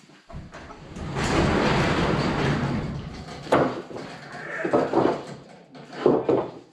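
Rough-cut wooden boards being loaded onto a stack on a wagon cart: a board scrapes along the pile of lumber for about two seconds, then three knocks of wood on wood as boards land.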